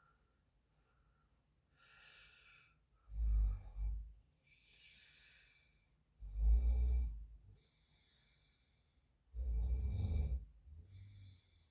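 A man snoring in his sleep: three loud, low snores about three seconds apart, with softer breathy hissing between them.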